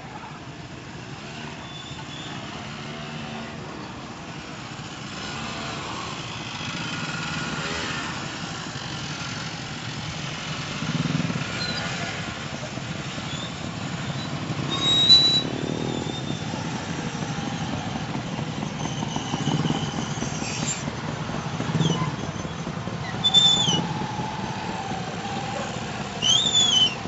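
Motorcycles and motorcycle-sidecar tricycles passing at low speed one after another, their small engines running in a steady drone that grows louder, with several louder passes close by. A few short high squeals sound over the engines.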